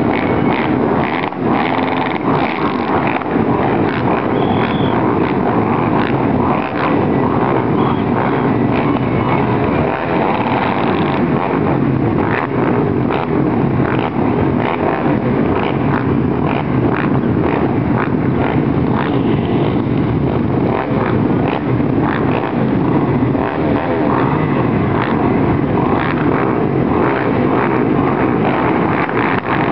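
Many sport quad ATV engines running together at a race start line, with frequent throttle blips from riders waiting behind the start gate.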